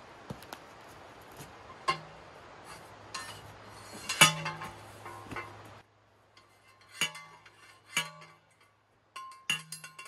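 A hand fence post pounder striking the top of an 8-foot copper grounding rod to drive it into the ground: a series of sharp metallic clanks, each with a short ringing tail. The loudest comes about four seconds in, and in the second half they come about once a second.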